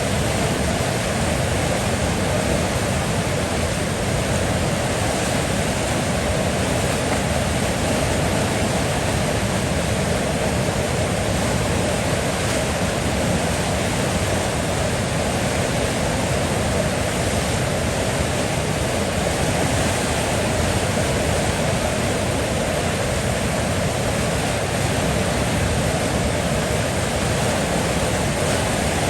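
River water flowing in a steady, even rush with no breaks or changes.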